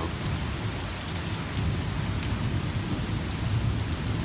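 Heavy thunderstorm rain falling steadily, with a low rumble of thunder underneath.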